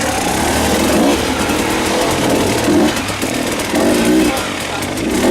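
Enduro motorcycle engine revving in short bursts, its pitch rising and falling as the throttle is blipped and released.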